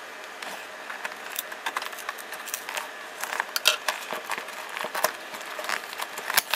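Cardboard shipping box being opened by hand: irregular scrapes, taps and crackles as a scissors point cuts through the packing tape and the flaps are worked loose.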